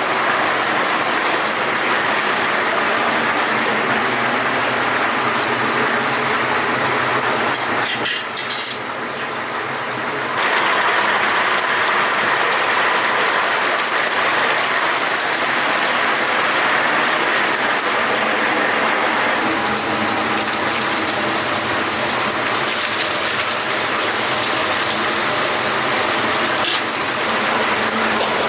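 Chicken deep-frying in hot oil in a cauldron: a steady, loud sizzle that dips briefly about eight seconds in.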